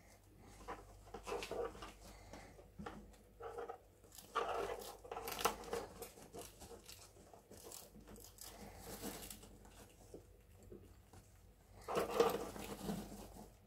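Pet rats gnawing on wooden chew toys and scrabbling in wood-shaving bedding: irregular scratchy crackles and clicks, with louder bursts about four to five seconds in and again near the end.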